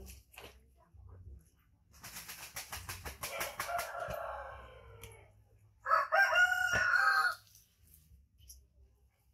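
A rooster crowing. A fainter crow with a fluttery start about two seconds in is followed by a louder, held crow lasting over a second, from about six seconds in.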